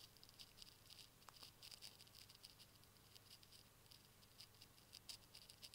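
Near silence: faint, irregular ticks as the bench power supply's voltage knob is turned slowly down by hand.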